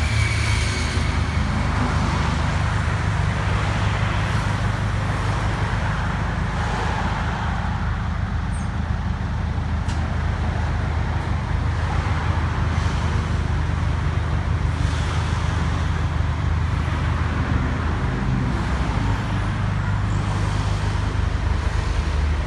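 Motor vehicle engine running steadily, with road traffic noise.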